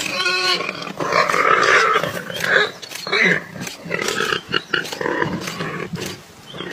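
Leopard growling and snarling as it digs head-first into a burrow, with scuffing of dirt.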